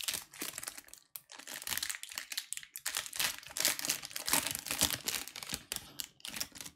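Trading-card pack wrapper crinkling as it is torn open and crumpled by hand, a dense run of fine crackles with brief pauses about a second in and again near the three-second mark.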